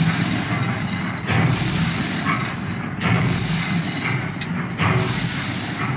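Background music with heavy, booming drum hits repeating about every one and a half seconds over a steady low drone.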